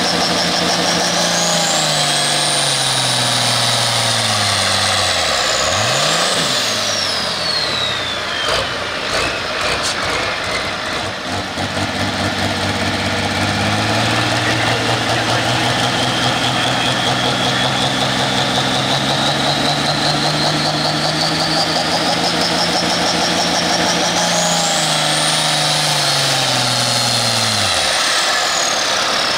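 Turbocharged International pulling tractor's diesel engine running and being revved while hooked to the sled. Its pitch slides down and back up over several seconds, and a high turbo whine rises and falls twice.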